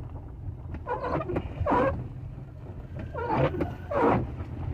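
The 2013 Chevrolet Impala's windshield wipers squeaking loudly across the wet windshield. Each pair of passes comes in quick succession, and there are two such pairs. A steady low engine and road rumble sounds inside the car cabin throughout.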